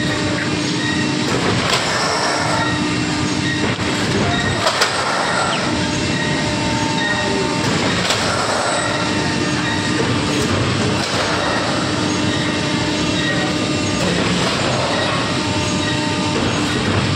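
Fabric flatbed screen printing machines running: a steady mechanical clatter and hum, with a sharp click every few seconds.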